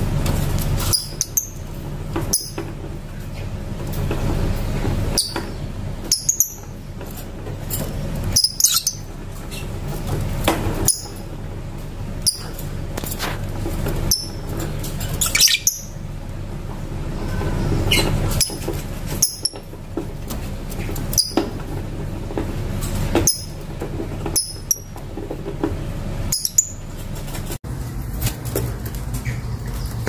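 Caged lovebirds giving short, sharp, high chirps, one every second or two, over a steady low hum.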